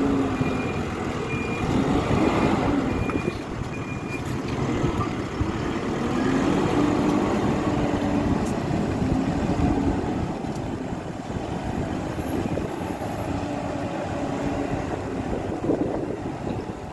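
Hidromek 102S backhoe loader's diesel engine working, its speed rising and falling. A reversing alarm beeps in a steady series for the first four seconds or so.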